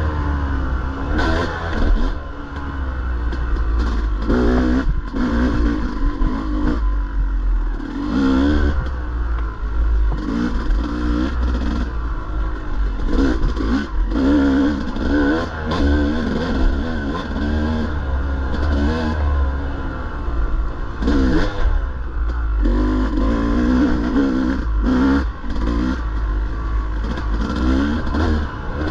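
Enduro dirt bike engine revving up and down repeatedly as it is ridden over a trail, the pitch rising and falling every second or two, with frequent knocks and clatter from the rough ground.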